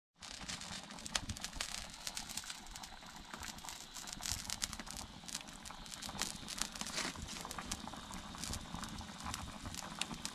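Open wood fire crackling, with many small sharp cracks over a low steady hiss.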